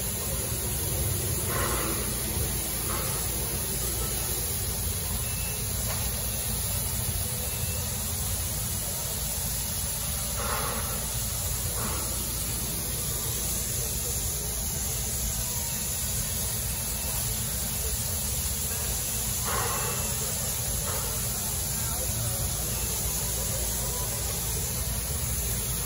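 A steam locomotive standing at rest, hissing steam steadily over a low rumble. A pair of short sounds about a second and a half apart recurs roughly every nine seconds.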